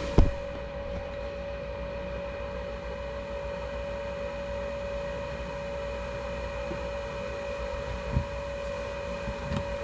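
Goodman gas furnace's draft inducer motor running with a steady hum and a higher whine while first stage calls for heat, with the burners unlit because no gas reaches the valve. A light knock comes just after the start and another about eight seconds in.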